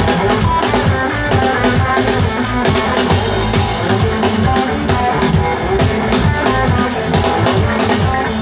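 Live reggae band playing an instrumental passage: drum kit, bass and plucked guitar, with no vocals.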